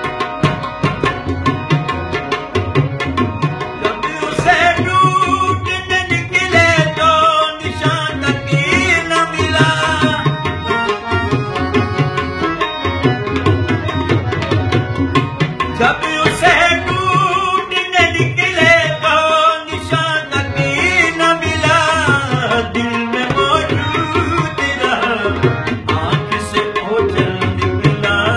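A man singing a folk song to harmonium and tabla. The first few seconds are tabla and harmonium alone, and the voice comes in about four seconds in.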